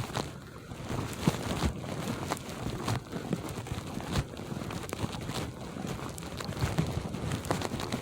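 Footsteps crunching through frozen snow and ice, a short crunch roughly twice a second.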